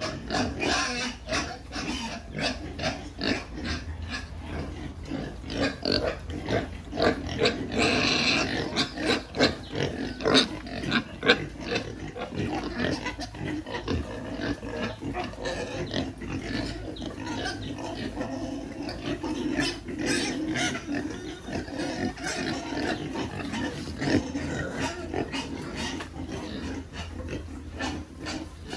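A group of young pigs grunting and snuffling, with many short clicks and knocks throughout and a brief higher-pitched cry about eight seconds in.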